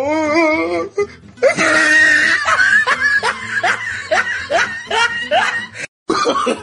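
A person laughing hard in a quick string of short rising "ha" bursts, about two to three a second, starting about a second and a half in.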